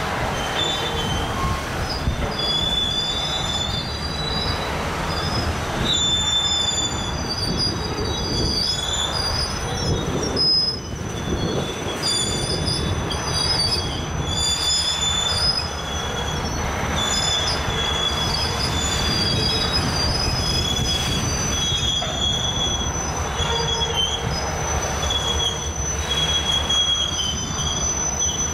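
A rail train's flatcars, loaded with welded rail, rolling past with their wheels squealing in high, wavering tones over a steady low rumble of wheels on track.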